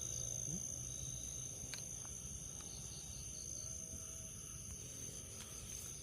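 Night crickets chirring steadily in a continuous high-pitched drone, over a low steady rumble.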